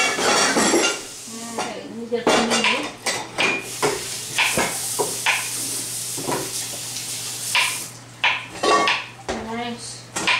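Kitchen utensils and dishes clattering: a string of irregular clinks and knocks over a low steady hum.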